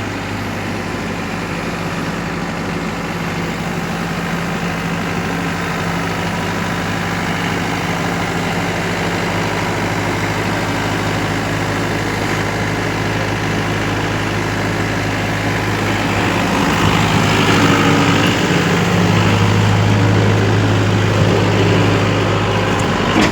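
Heavy diesel engine running steadily at idle, then working harder and louder about two-thirds of the way through.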